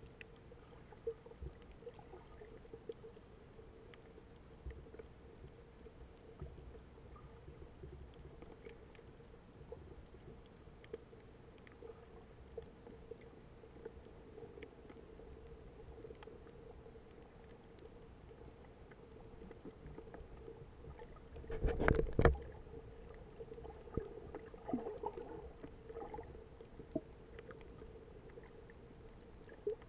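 Underwater sound on a snorkeler's camera: a muffled water hush with a steady hum and scattered small clicks, and a brief loud rush of water about two-thirds of the way through.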